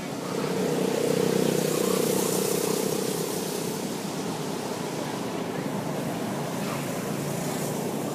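A motor vehicle's engine hum passes by, growing louder over the first second and then slowly fading.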